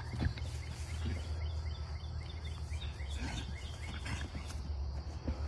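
Steady low background hum with faint, scattered bird chirps.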